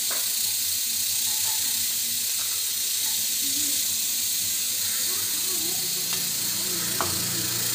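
A steady high hiss at an even level, with faint voices in the background and a light tap about seven seconds in.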